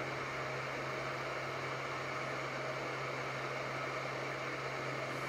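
Hot air rework gun of a Sumsour 8586 rework station blowing steadily: an even hiss of hot air with a steady low hum underneath, heating a surface-mount diode to melt its solder.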